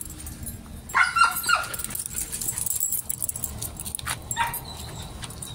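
A dog barks three short times in quick succession about a second in, with one weaker call a few seconds later. A metal chain leash clinks throughout.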